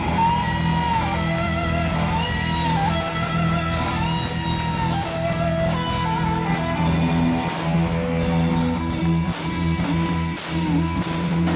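Live rock band playing with no vocals: electric guitars, one holding and bending lead notes, over drums, with more cymbal crashes toward the end.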